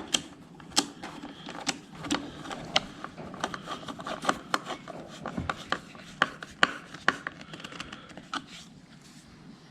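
Plastic parts of an electric pressure washer being handled and fitted together: irregular clicks and knocks with some rubbing.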